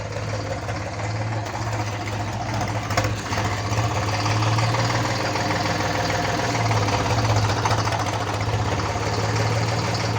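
Eicher 485 tractor's three-cylinder diesel engine running steadily with a low, even knock.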